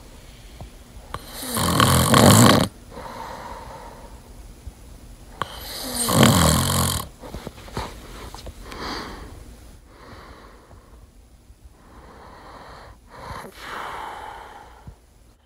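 A sleeping person snoring: two loud snores about four seconds apart, then only softer, quieter snoring breaths.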